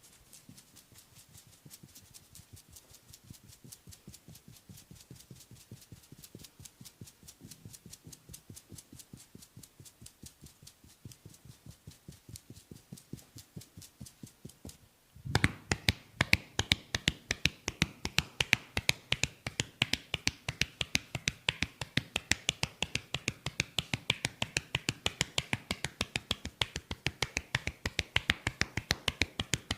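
Percussive massage tapping on the head and shoulders, a quick, even rhythm of sharp slaps. The taps are faint at first and get much louder about halfway through.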